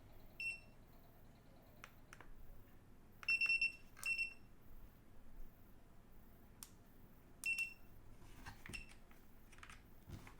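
Digital clamp meter's beeper giving a few short, high-pitched beeps, one held a little longer, with faint clicks between them as its buttons and selector are worked.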